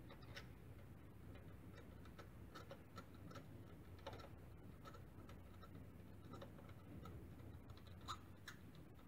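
Faint, irregular light metallic clicks and ticks of a spark plug socket and extension being turned by hand in an engine's plug well, threading in a new spark plug.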